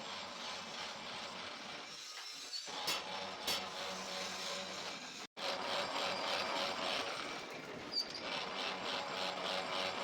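Metalworking tool noise in a rim repair shop: a steady rasping like a power tool working metal, with two sharp knocks about three seconds in. The sound cuts out for a moment about five seconds in.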